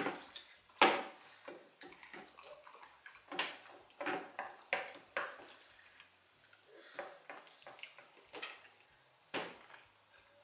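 Close-miked eating sounds from someone eating soft plantain pottage by hand: a scatter of short, wet smacks and clicks of chewing and lips, the loudest about a second in.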